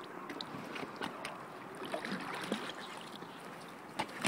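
Kayak gliding on a creek, water washing steadily around the hull, with a few short sharp knocks, the loudest near the end.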